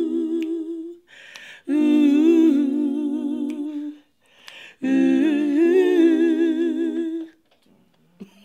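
Gospel a cappella harmony: several voices, female and male, humming wordless held chords with vibrato, with quick breaths between the three phrases. The singing ends about a second before the end.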